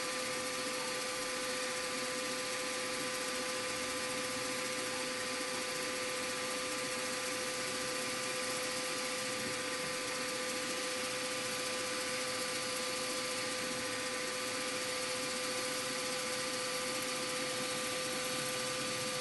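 Bench mill's spindle running at a steady pitch, a fixed whine over even motor hiss, while a 3/32-inch reamer turns in the chuck and is fed down through a small drilled hole in a brass carburettor body.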